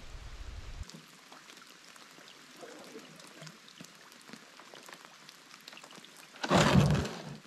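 Rain pattering on a lake surface in many small drops. Near the end comes one loud scraping thump, under a second long, as the wooden canoe's hull runs up onto the shore.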